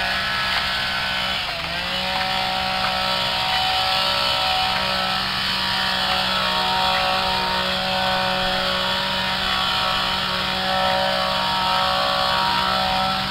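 An engine running steadily, its speed dipping briefly and recovering about a second and a half in.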